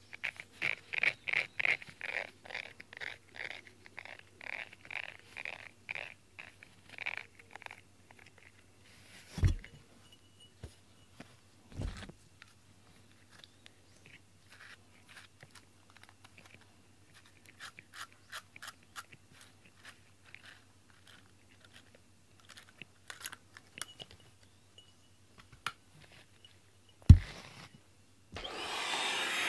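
Fingers scraping and plucking cat hair off the bristles of a rubber grooming brush, a quick regular scratching about three strokes a second, then slower scattered scratches and clicks with a few soft knocks, one louder knock near the end. Just before the end a steady rushing noise starts.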